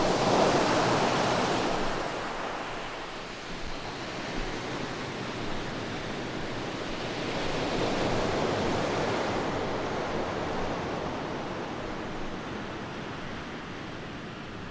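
Washes of noise with no beat or melody, like surf: one swell at the start and a second, rising sweep about eight seconds in, then slowly fading. This is a noise-sweep passage in the electronic dance track.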